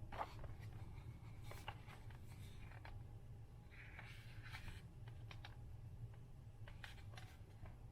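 Pages of a hardcover book being handled and turned: faint paper rustles and light clicks, with a brief paper slide about four seconds in.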